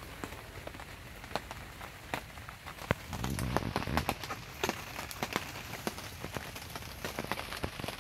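Raindrops tapping irregularly on the plastic sheeting of a greenhouse, with a brief low rumble about three seconds in.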